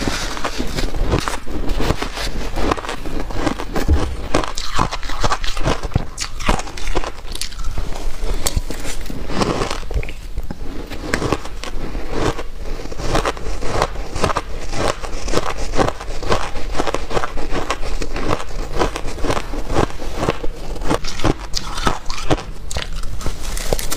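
Shaved ice being chewed, crisp and dry, in a rapid run of crunches one after another.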